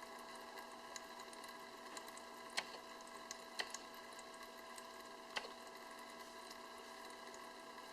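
Sharp drum washing machine running: a faint, steady mechanical hum of several held tones, with a few sharp clicks now and then.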